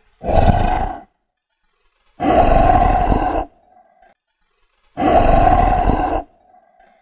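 Growl sound effects for a wounded Tyrannosaurus rex: a short growl, then two longer ones of about a second and a half each, with short silent pauses between.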